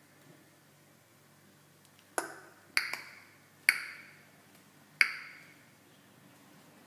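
Four sharp clinks spread over about three seconds, each ringing briefly at a fixed pitch before fading.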